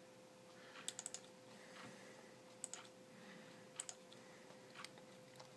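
Faint clicking on a computer's controls: a quick run of three clicks about a second in, then single clicks every second or so, over a faint steady hum.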